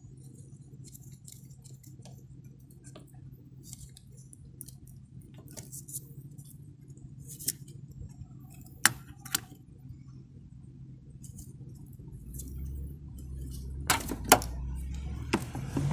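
Irregular light metallic clicks and clinks of a 10 mm wrench working a car battery terminal loose, with a few sharper clinks towards the end. A low vehicle rumble builds in the last few seconds.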